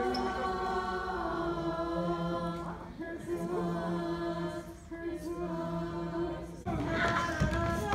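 A mixed-voice show choir singing a cappella, holding sustained chords in phrases of about two seconds. About a second before the end the sound turns louder and busier.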